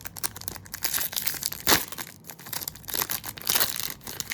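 Wrapper of a Bowman U Chrome trading card pack being torn open and crinkled by hand: a quick run of sharp crackles, one louder crackle a little over a second and a half in.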